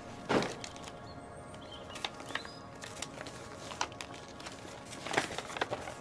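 Paper rustling and scissors snipping as a sheet of paper is cut and a poster unfolded, in scattered short bursts over quiet background music. The loudest rustle comes just under half a second in, with another cluster of rustles around five seconds in.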